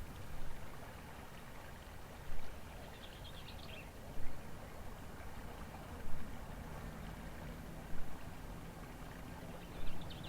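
Water flowing and lapping, with a surge about every two seconds, and a small bird's short high twitter twice, about three seconds in and near the end.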